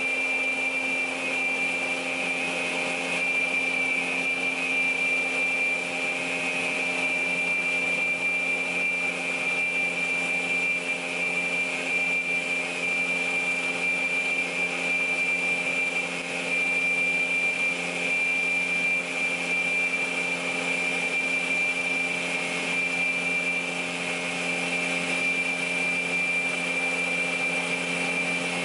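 PAUL K3U800 multi-rip saw running steadily without cutting: an even motor hum with a high-pitched whine and no changes in load.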